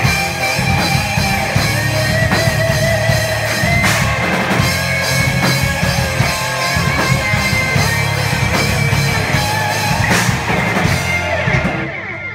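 Loud live rock band playing: distorted electric guitars over a drum kit with regular cymbal and drum hits. The song stops near the end.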